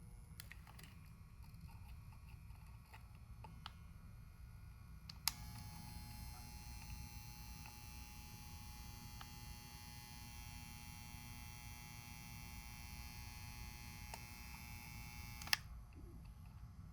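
Faint, steady low electrical hum. About five seconds in, something clicks on and a steady high whine of several tones runs for about ten seconds, then stops with another click.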